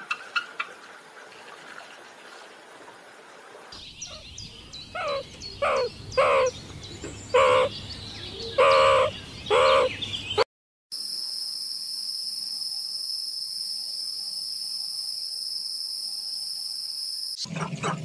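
Faint high chirps of a bald eagle at the start. Then a ring-tailed lemur gives about six short calls over some five seconds. A steady, shrill high-pitched tone follows and holds for about six seconds before cutting off.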